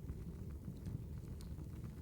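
Wood fire crackling: scattered sharp pops and snaps over a steady low rumble of the flames.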